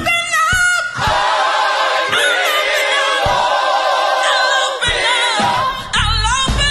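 Gospel choir singing live in full voice with a lead singer. The band's low accompaniment drops away about a second in, leaving the voices nearly on their own for a few seconds, and comes back in near the end.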